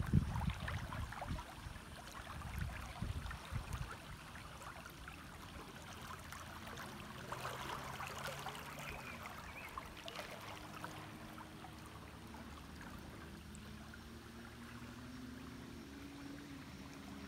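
Shallow river current rippling and trickling over riffles, soft and steady, a little louder in the first few seconds.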